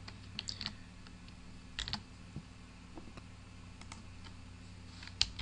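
A few scattered computer keyboard keystrokes and clicks, faint, over a low steady electrical hum.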